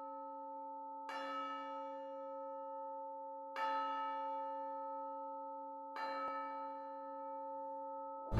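A bell struck three times, about two and a half seconds apart, each stroke ringing on into the next.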